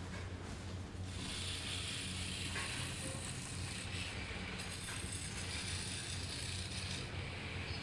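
Belt-driven wood lathe running with a steady hum; from about a second in, a hand-held turning tool cuts into the face of a spinning wooden disc with a steady scraping hiss.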